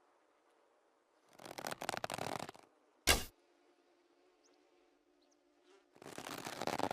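Manchu bow drawn with a noisy rustle lasting about a second and a half, then loosed with a single sharp snap of the string about three seconds in. A second draw begins near the end. A steady low hum runs underneath.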